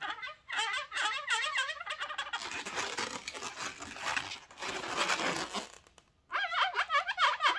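Inflated latex twisting balloons squeaking and rubbing against each other and the hands as the balloon fish is handled and its eye drawn on with a marker. Quick wavering squeaks open the stretch, a rubbing, crinkling sound follows, and after a brief pause the squeaking comes back about six seconds in.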